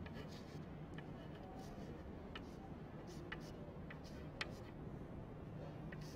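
Chalk on a blackboard as letters are written: faint, irregular clicks and taps of the chalk striking the board, over a low steady hum.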